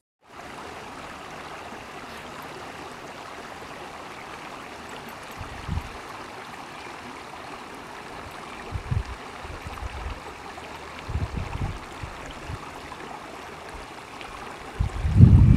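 Water flowing steadily in a shallow, rocky stream, with a few short low rumbles; the loudest comes near the end.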